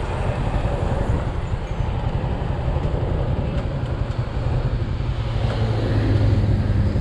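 Motorcycle engine running while riding at speed, with wind and road noise. The engine note grows a little louder and steadier near the end.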